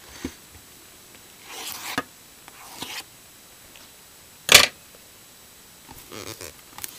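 Plastic shrink wrap on a cardboard box being slit and pulled off: a few brief rustling scrapes, then a short loud rip about four and a half seconds in, and crinkling near the end.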